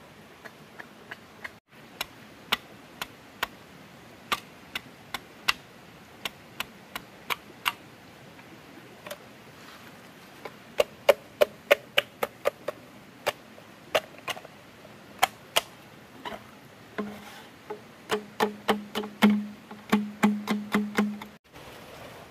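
Chopping with a blade on wood: single sharp strikes at uneven intervals, coming in quick runs of about four a second. In the last few seconds the strikes ring with a low hollow note.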